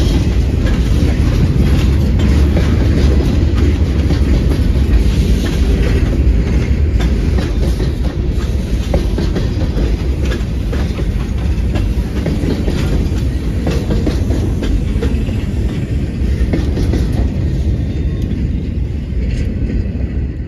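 A freight train's boxcars rolling past, their steel wheels clicking over the rail joints in a steady rumble. The sound eases off gradually and fades out near the end.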